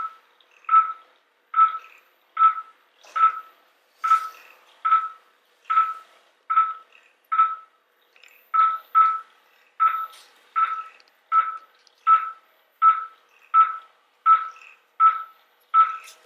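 Operating-room patient monitor sounding its pulse tone: a short beep of one steady pitch repeating about every three-quarters of a second, one beep per heartbeat, a rate of about 75 a minute.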